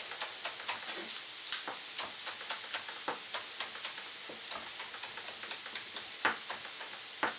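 Chef's knife chopping spring onion greens on a plastic cutting board: quick, even chops at about three or four a second, fewer toward the end. Under it, the steady sizzle of carrots frying in oil in a pan.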